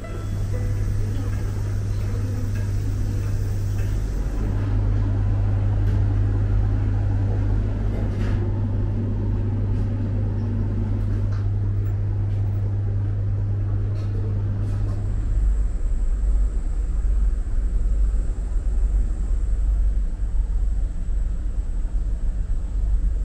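A steady low rumble with a deep hum under it and a few faint clicks; about fifteen seconds in the hum drops lower and the rumble grows a little louder.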